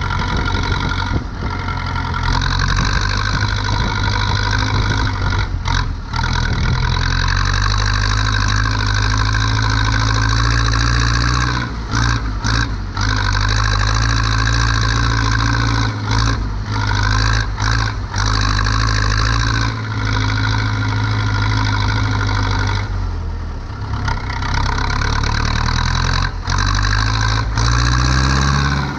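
Zetor 7245 tractor's four-cylinder diesel engine running steadily, broken by a few brief dips in sound. Around two-thirds of the way through it drops in pitch and level for about a second, then picks back up.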